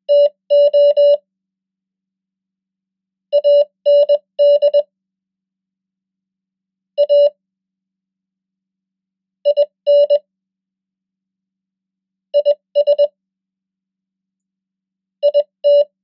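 Morse code (CW) sent at 20 words per minute as a steady mid-pitched beep tone, spelling out the common English words "to", "and", "a", "in", "is" and "it" one at a time. Each word is a quick group of dots and dashes, followed by a silent pause of about two seconds.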